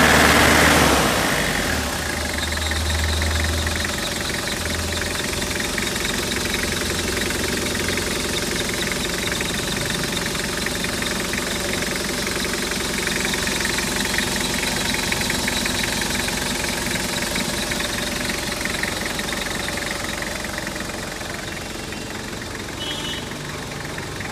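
Toyota Qualis 2.4 L four-cylinder diesel engine with an aftermarket turbocharger, idling steadily with diesel clatter after a louder first second or so, with a faint high steady whine over it.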